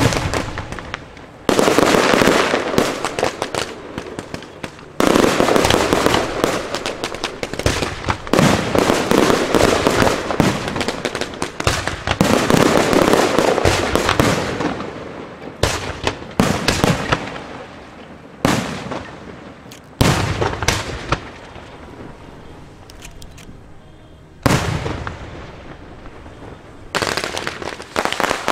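Aerial fireworks shells launching and bursting one after another, each volley starting with a sudden loud burst and trailing off into dense crackling and popping, every few seconds.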